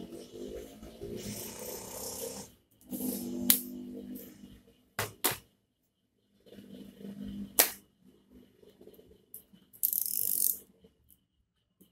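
Small plastic and metal speedometer parts being handled: rustling and scraping, with a few sharp clicks and taps, and a short scrape near the end.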